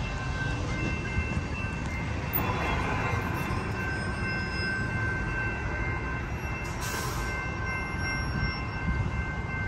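Railroad grade-crossing warning bell ringing steadily, with a low rumble underneath.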